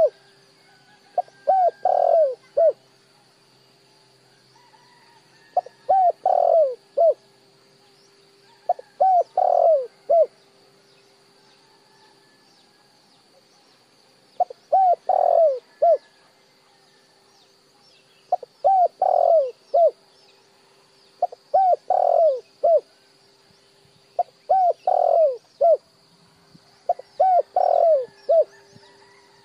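Spotted dove cooing its repeated call: eight phrases, each a few short coos around one longer, louder note, spaced about three to four seconds apart.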